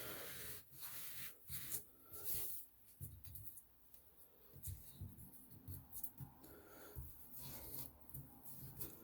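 Faint, irregular rubbing and scraping of hands wiping and scrubbing the sink deck where the old faucet was removed.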